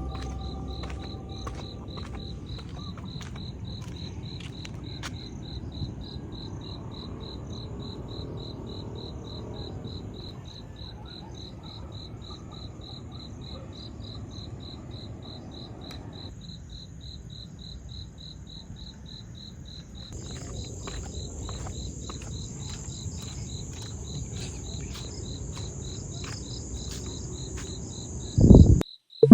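Insects chirping in a steady pulsed rhythm of about four chirps a second; a second, higher insect drone joins about two-thirds of the way through. Near the end there is a brief loud low rumble.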